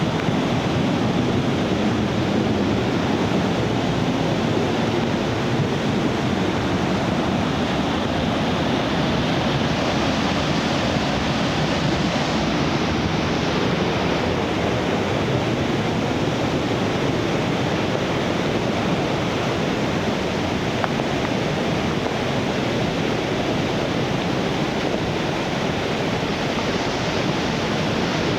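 Nunobiki Ontaki waterfall pouring: a loud, steady rush of falling water that holds even and unbroken throughout.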